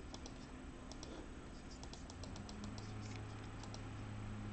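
Faint, scattered clicks of a computer mouse, with a low steady hum that comes in about two seconds in.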